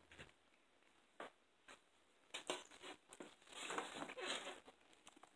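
Faint eating sounds: scattered small clicks and rustles of food being picked from a takeout tray and chewed, with a denser burst of crunching and handling about three and a half to four and a half seconds in.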